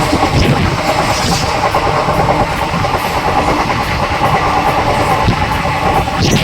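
Passenger train coaches running on the track: a steady rumble of wheels on rails with a few sharp clicks over the rail joints.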